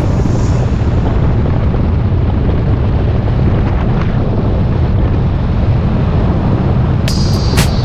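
Wind buffeting the microphone of a camera on a moving bicycle: a loud, steady low rumble. About seven seconds in, sharp ticks and a high, slowly falling tone come in over it.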